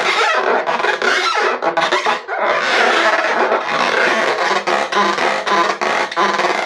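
Slime squished and worked by hand: a continuous wet crackling and squelching made of many small rapid pops.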